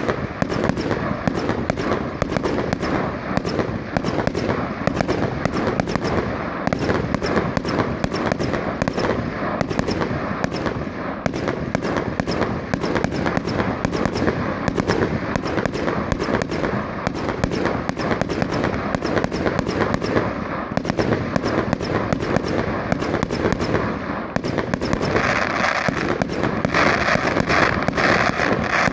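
Fireworks going off in rapid succession, a dense, unbroken crackle of bangs, growing louder and brighter near the end.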